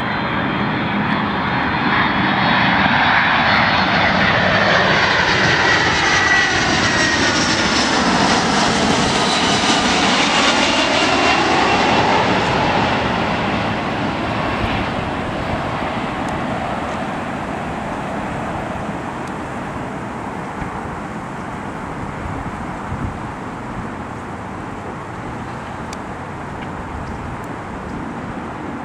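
Jet airliner on its landing approach passing low overhead. Its engine noise swells and peaks with a high whine that falls in pitch as it goes by, then fades away after about thirteen seconds into a lower, steady rumble.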